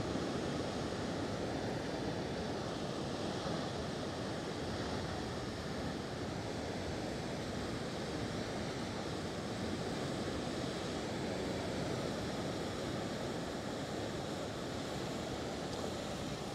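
Ocean surf and strong wind blowing over the microphone, a steady, even rush with no distinct events.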